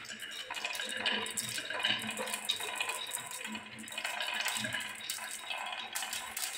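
Many glass marbles rolling down wooden marble-run tracks, a spiral and a wavy slope, with a steady stream of clicks and clacks as they knock against the wood and each other.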